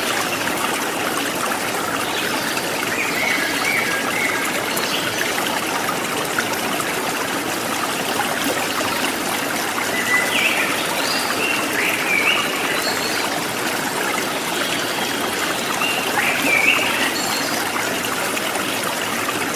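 Rainwater running and trickling steadily through the swamp, with a few short high chirps over it.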